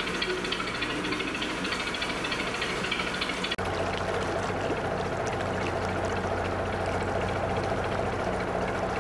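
Narrowboat's diesel engine running steadily under way, with water churning and splashing. About three and a half seconds in the sound cuts abruptly and the low engine hum becomes stronger.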